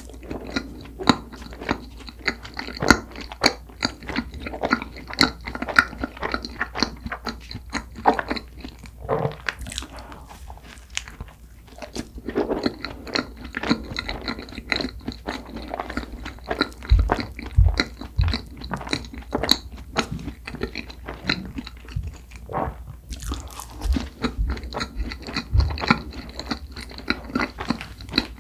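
Close-miked eating of soft cream-filled red bean buns: bites into the bread, then steady chewing with wet, sticky mouth clicks and soft crunches.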